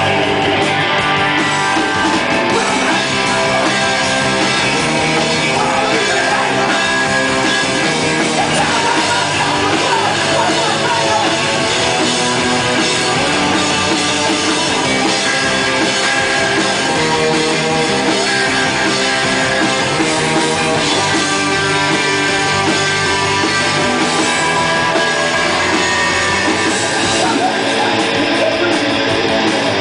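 Live rock band playing loud and steady: electric guitar, bass and drums, with the singer's vocals.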